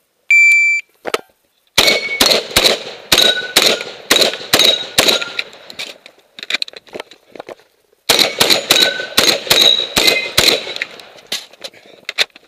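A shot timer beeps once. A Saiga 12 semi-automatic shotgun then fires two rapid strings of about ten shots each, roughly three shots a second, with a pause of a couple of seconds between the strings. Steel targets ring after many of the hits.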